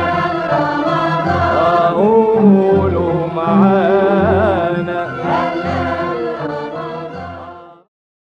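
Arabic Ramadan song: voices singing an ornamented melody over a low, regular beat. It fades and cuts off abruptly near the end.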